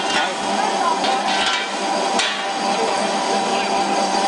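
Small flat die pellet mill running under load: a steady machine hum with a constant grinding rattle as feed is pressed through the die, and a few sharp knocks.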